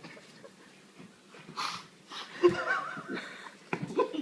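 A person's breathy wheezes in short separate bursts, with a brief wavering whimper about two and a half seconds in: strained sounds from struggling with a mouthful of banana peel.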